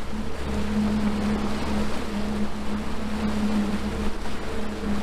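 Evinrude 250 V6 two-stroke outboard motor running steadily at planing speed, with the wake's water rushing.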